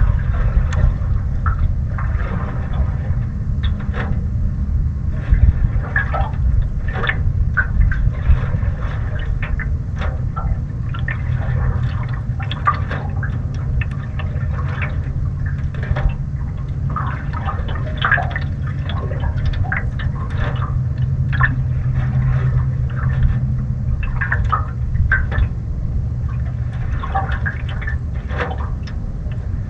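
Small choppy waves slapping and lapping irregularly against a canoe hull, over a steady low rumble of wind buffeting the microphone.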